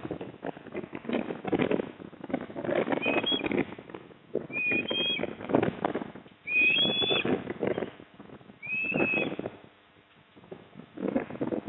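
Four short, high whistled osprey calls, spread across the middle of the stretch, over repeated bouts of scratchy rustling and knocking noise.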